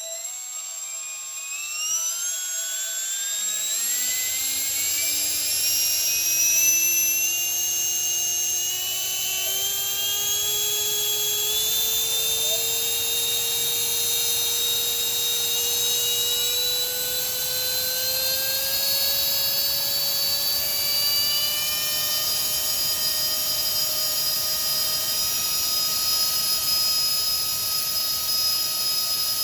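55 mm eight-blade electric ducted fan with a brushless motor spinning up: a whine that rises quickly in pitch over the first several seconds, then a loud, steady, high-pitched fan whine over a rush of air that keeps creeping slowly higher as the throttle is eased up.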